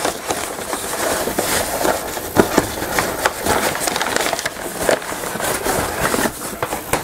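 Crumpled brown packing paper rustling and crinkling steadily as a metal propane regulator is handled and lifted out of it. A few sharper knocks stand out, the loudest about two and a half seconds in.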